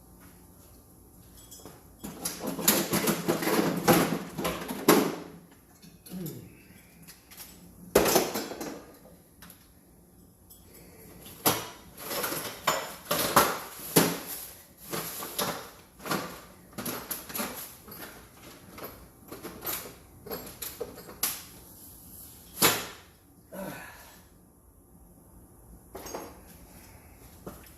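Irregular clattering, knocking and scraping of the water heater's vent parts being handled and fitted, with a sharp knock about eight seconds in and a busy run of clatter near the middle.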